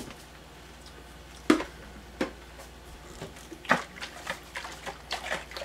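A few separate knocks and taps of handling, most of them in the second half: a large glass jar being picked up and tilted in the hands.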